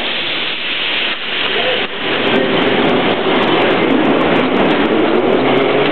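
Vintage metro train running: a dense rumble of wheels and rails that grows louder about two seconds in. From then on a motor whine rises slowly in pitch, with scattered sharp clicks over it.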